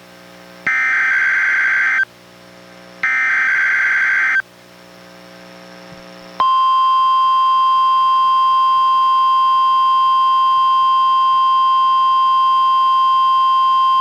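NOAA Weather Radio test signal played through a weather radio receiver. First come two bursts of the SAME digital header, each about a second and a half long with a second's gap between them. About six seconds in, after a short pause, the steady 1050 Hz warning alarm tone begins and holds without a break.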